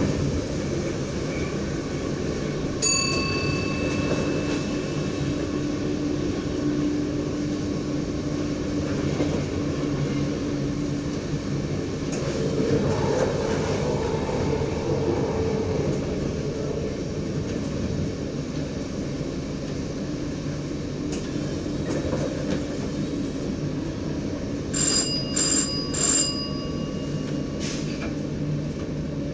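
NS DDZ double-deck electric train running, heard from the driver's cab: a steady rumble of wheels and traction. A single bell-like chime sounds about three seconds in, and three short chimes follow in quick succession near the end.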